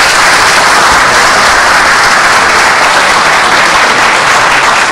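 A crowd of people applauding, loud, dense and steady.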